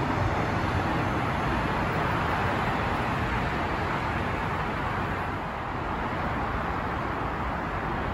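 Steady road traffic noise: a continuous wash of passing cars with no distinct events, easing slightly about halfway through.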